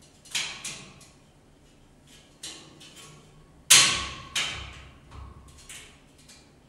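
Irregular knocks and thuds as the boards of a flat-pack sideboard are fitted together: about six separate knocks, the loudest about three and a half seconds in.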